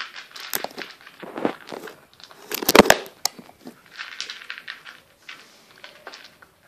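Cat eating from a bowl close to the microphone, with irregular chewing crunches; the loudest cluster of crunches comes nearly three seconds in.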